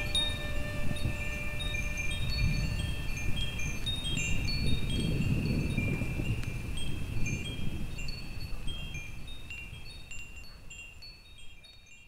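Wind chimes tinkling at random over a low rumbling noise, fading out over the last few seconds.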